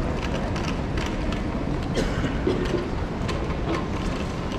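Large terminal hall ambience: a steady low hum with irregular clicks of footsteps and suitcase wheels rolling over the tiled floor.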